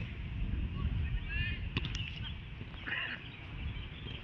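Wind rumbling on the microphone, with a few short high-pitched calls about a second and a half in and again around three seconds, and a sharp knock just before two seconds.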